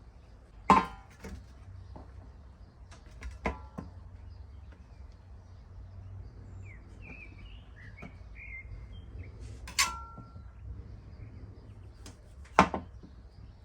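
Four sharp clinks and knocks of kitchen utensils against a board or dish, some ringing briefly, while vegetables are cut for grilling. Birds chirp a few times in the middle.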